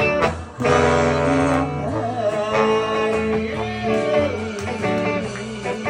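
Live music: an electric guitar playing along with a man singing into a microphone, over a steady low accompaniment.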